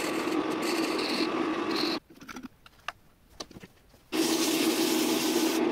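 Metal lathe running and turning a piece of wood, a steady hum under the noise of the cut. It drops away to quiet with a few small clicks about two seconds in, comes back about four seconds in, and cuts off abruptly at the end.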